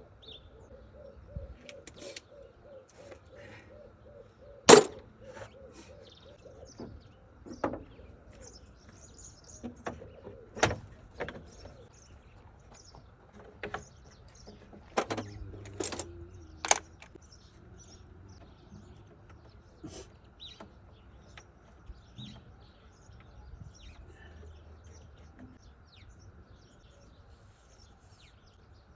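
Scattered sharp clicks and knocks of hand work on a car's engine bay, with a single loud knock about five seconds in and a cluster of knocks in the middle. Birds chirp faintly in the background.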